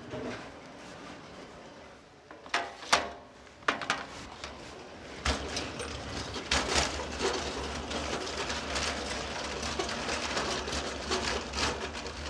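Stacked plastic nursery trays knocking and clattering as they are carried and handled: a few sharp knocks about two to four seconds in, then continuous rattling and rubbing with a low rumble from about five seconds in.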